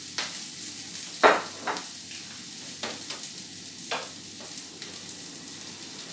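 Chopped garlic and onion sizzling in oil in a nonstick frying pan, with a wooden spatula knocking and scraping against the pan several times; the loudest knock comes about a second in.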